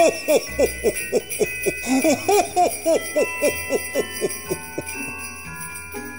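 Sleigh bells jingling in a quick rhythm, about five shakes a second, over soft Christmas background music, fading out about five seconds in.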